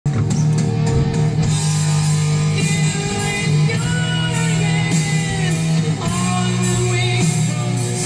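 Background rock music with a singing voice and guitar, playing steadily throughout.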